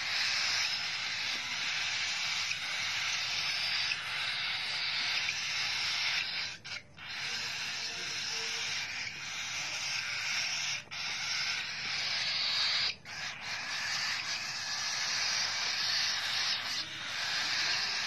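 Baby cockatiel chicks giving their raspy, hissing begging calls almost without pause as they are hand-fed, breaking off briefly three times.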